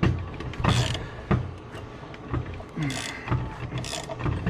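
Irregular sharp metallic clunks and rattles, about five in four seconds, as an aluminium engine crankcase is forced apart with a case splitter.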